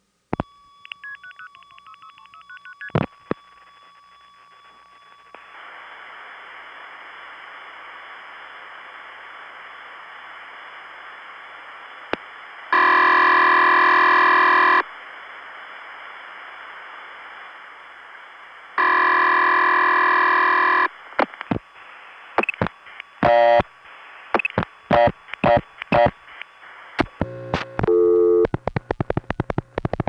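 Analog long-distance telephone line in the 1970s: a click and steady line tones with short signalling tones as the call is set up, then an open line hissing, then two 2-second bursts of ringing tone six seconds apart, the call ringing with no answer. Near the end, a quick run of clicks and short tone bursts.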